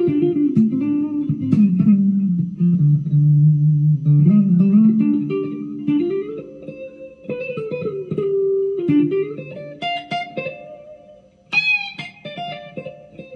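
Firefly FFLPS Les Paul–copy electric guitar playing a single-note lead line on a basic patch, stepping down into low notes and climbing back up, with a bent high note near the end. Its pickups sound a little dull and underpowered to the player.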